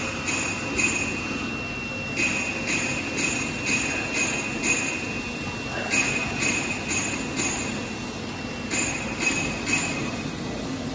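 Electronic beeper sounding short high beeps about twice a second in several runs, with pauses between them, over a steady high tone that stops about six seconds in and a low, steady machine hum.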